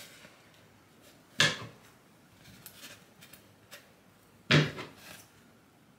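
Two sharp knocks about three seconds apart, with a few light clicks between: objects bumped or set down while working at a bench.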